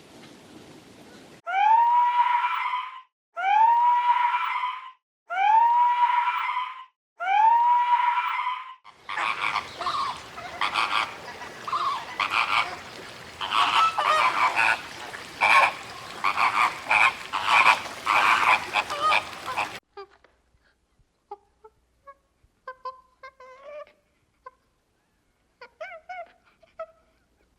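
Animal calls: four long calls, each rising in pitch and then held, follow one another at about two-second spacing. Then comes a dense run of many short calls together, which stops suddenly and leaves only a few faint chirps.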